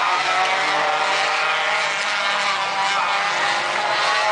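Stock car engines running at speed as several race cars circle the oval: a steady drone whose pitch shifts slightly as the cars go round.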